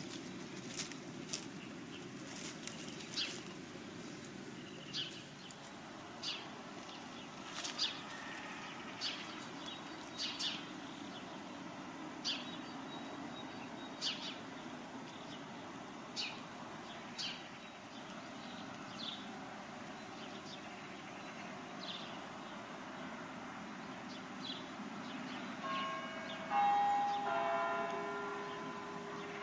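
A bird gives short, sharp high chirps about every one to two seconds. Near the end, church bells start ringing, louder than the chirps.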